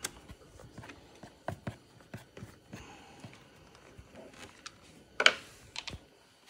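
Scattered light clicks and taps of a Phillips screwdriver and small plastic parts as Phillips-head screws are taken out, with one louder click about five seconds in.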